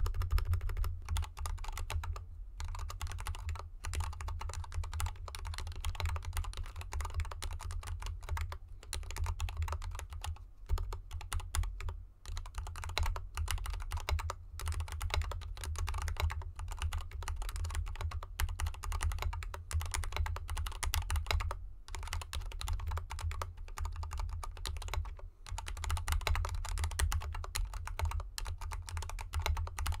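Continuous fast typing on a GK64X mechanical keyboard with lubed Gateron Yellow linear switches and XDA keycaps, in an aluminium case with dampening foam and set on felt fabric. Brief pauses come a few times.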